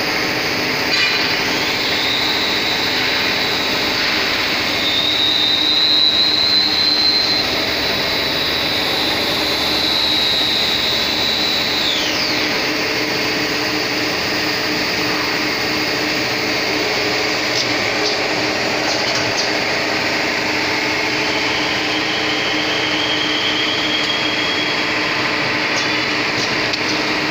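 CNC lathe with an automatic bar loader running: a steady machine hum carrying a high whine that swells a little, then drops away sharply about twelve seconds in. A fainter whine comes back later.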